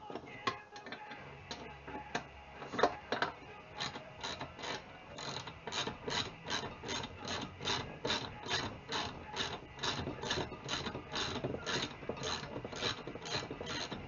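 Hand ratchet with a 9/16 socket clicking as it backs a nut off a steel pedal-assembly bolt, while a wrench holds the other side. After a few separate knocks, it settles about four seconds in into steady, even clicking, about three clicks a second; the nut is turning freely.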